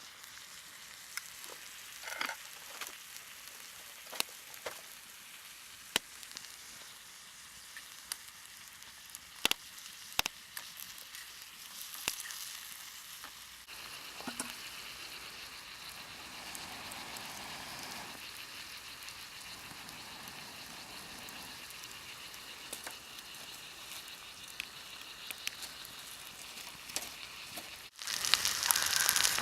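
Food frying in a pan over a campfire: a steady sizzle with scattered sharp crackles and pops. The sizzle becomes louder abruptly just before the end.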